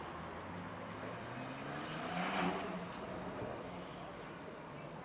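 Street traffic: a heavy motor vehicle's engine running close by, with a swell of noise that peaks a little over two seconds in as it passes.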